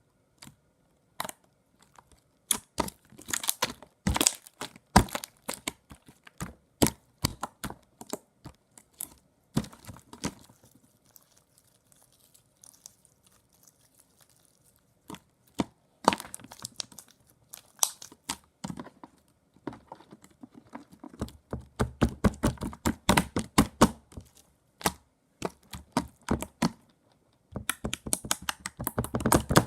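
Glossy slime being squished, poked and stretched by hand, making rapid sticky clicks, pops and crackles in bursts, with a quieter pause midway.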